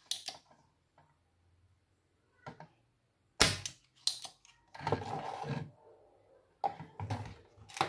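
Sharp clicks and light taps of hand tools on a computer motherboard while capacitors are desoldered. There are a few clicks at the start, a louder cluster about halfway, and more clicks near the end.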